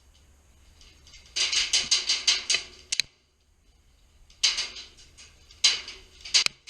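Airsoft guns firing: a rapid burst of a dozen or so snapping shots lasting about a second and a half, then three shorter bursts in the second half.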